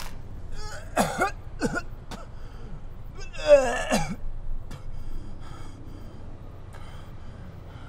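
A man coughing and groaning in pain while doubled over: two short strained coughs about a second in, then a louder, longer groan a little after three seconds in.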